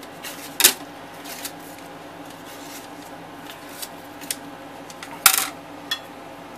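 Handling noise as strips of double-sided tape are pressed onto an ABS plastic sheet and the sheet is moved about on an aluminium CNC table: scattered taps and rustles, with two louder sharp ones about half a second in and about five seconds in, over a faint steady hum.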